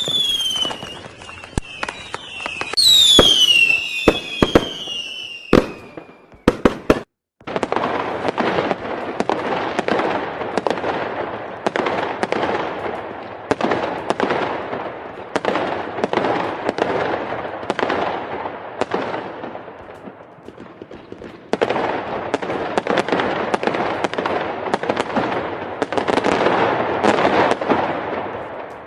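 Fireworks: at first a whistling rocket falls in pitch among a few sharp cracks, and another follows about three seconds in. After a brief break, a dense, continuous barrage of bangs and crackles runs on, easing for a moment about two-thirds of the way through before picking up again.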